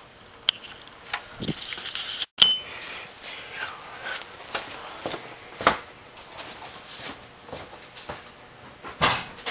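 Scattered light knocks and clicks of a camera being handled and moved under a van, with no engine running. The sound cuts out briefly a little over two seconds in, followed by a short high beep.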